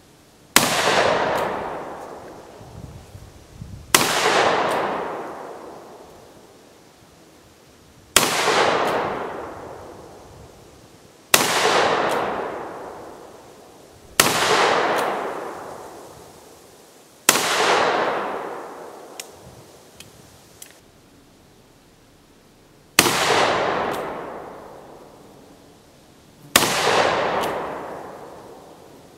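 Pietta 1873 single-action revolver in .44 Magnum firing eight single shots, spaced about three to six seconds apart. Each sharp report is followed by a long echoing decay of two to three seconds.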